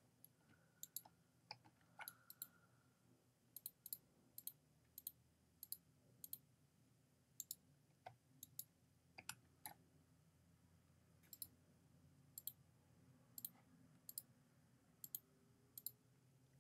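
Faint, irregular clicking of a computer mouse and keyboard: many short clicks, mostly in quick pairs.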